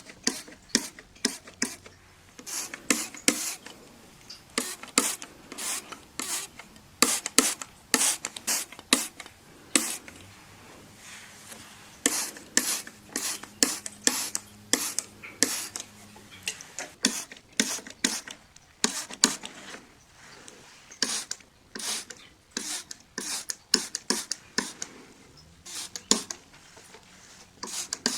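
A window being cleaned with glass cleaner and a cloth: quick, irregular runs of short hissing spurts and rubbing strokes on the glass.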